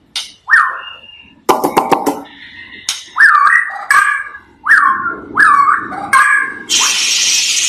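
A bird calling repeatedly: short, sharp notes that each drop quickly in pitch, coming about every two-thirds of a second, with a burst of rapid clicks near two seconds in. A steady hiss takes over about seven seconds in.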